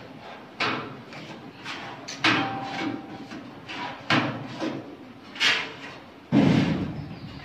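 Putty knife working filler on a mild-steel wardrobe: five sudden scraping knocks against the sheet metal, roughly one every second and a half, one of them leaving a brief ringing tone. The last, near the end, is the loudest, a thump.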